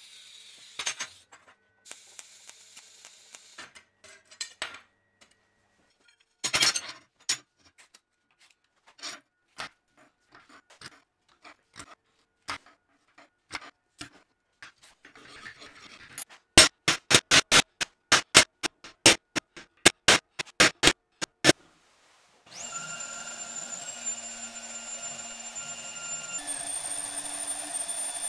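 A sequence of metalworking sounds. It opens with the faint hiss of TIG tack welds and some light handling clicks, then a run of about a dozen sharp strikes, each about half a second apart. About three-quarters of the way in, a magnetic drill press starts and runs steadily as it bores through steel flat bar.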